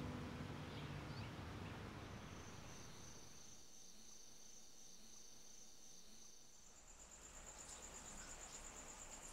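Faint, steady high-pitched trilling of night insects, with a second, higher and stronger trill coming in about two-thirds of the way through. The last notes of soft background music fade out in the first couple of seconds.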